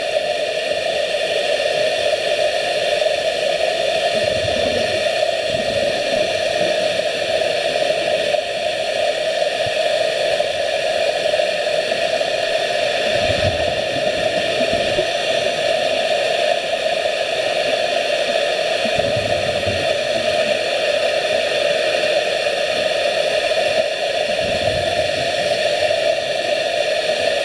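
Steady underwater hiss picked up through a camera in a pool, with a low rumble of a diver's scuba regulator exhaling bubbles several times.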